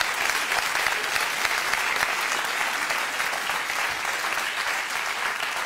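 Studio audience applauding: many hands clapping in a dense, steady patter that eases off slightly near the end.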